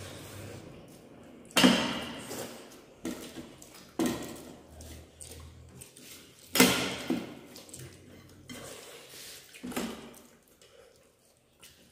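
Stainless steel plates and bowls clinking and scraping as rice is eaten by hand, with several sharp knocks each dying away over about a second; the loudest come about one and a half seconds in and again at six and a half seconds, and it goes quiet near the end.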